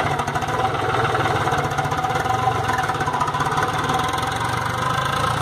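New Holland TN65 tractor's three-cylinder diesel engine running steadily, with no change in speed.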